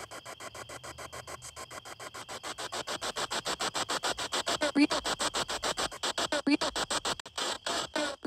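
Spirit box sweeping through radio stations: a rapid, even stutter of static chops that grows louder about two seconds in, with a couple of brief voice-like radio snatches near the middle.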